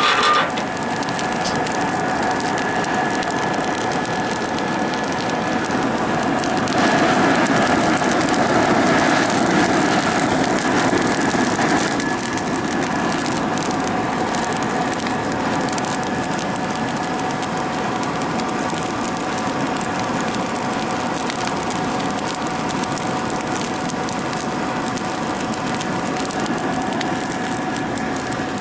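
Brake-rotor forge burning hard under forced air: a steady rush and whine from the blower motor with the fire crackling over it. It swells for several seconds about a quarter of the way in.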